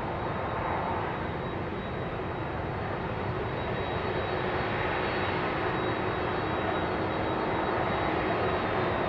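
Boeing 747-400 jumbo jet's four turbofan engines running at low taxi thrust, a steady jet whine with faint steady tones, growing slightly louder as the plane turns across the taxiway.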